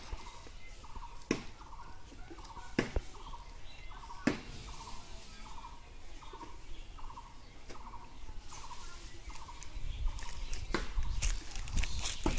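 An animal's call, one short note repeated about twice a second, with sharp clicks roughly every second and a half. Near the end there is rumbling and rustling as the camera brushes against clothing.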